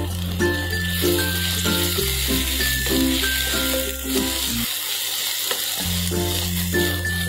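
Sliced onions sizzling as they fry in ghee in a kadai and are stirred with a spatula, under background music with a sustained bass and a repeating melody.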